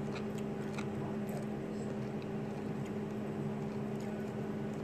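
A steady low hum with a few faint, sharp clicks scattered through, the mouth noises of someone chewing a whole lime with its peel.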